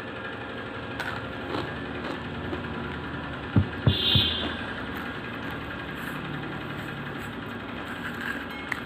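A steady mechanical hum, like a running engine, with two sharp knocks a fraction of a second apart about three and a half seconds in.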